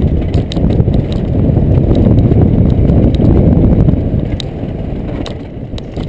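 Downhill mountain bike running fast over a loose, rocky trail, heard through a helmet-mounted GoPro: a loud rumble of tyres and wind on the camera, with scattered clicks and knocks from stones and the rattling bike. It is loudest in the middle and eases near the end.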